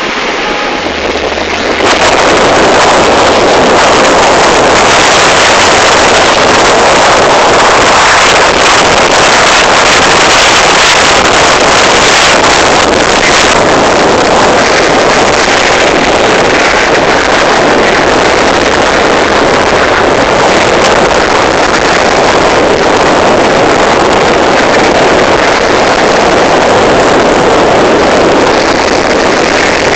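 Loud steady rushing of wind buffeting the microphone in a moving car, setting in suddenly about two seconds in.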